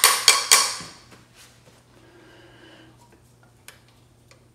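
A quick run of sharp taps, about three a second, each ringing briefly, ending about a second in. After that, a low steady hum with a few faint clicks.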